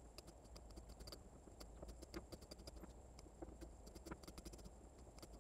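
Faint, quick computer mouse clicks, a few a second at an irregular pace, over a faint low hum: bullet impacts being marked one by one in group-comparison software.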